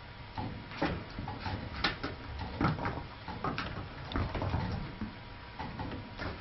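A kitten batting a small toy ball across the floor: irregular light knocks and taps as the ball is struck and rolls, mixed with the scuffle of paws.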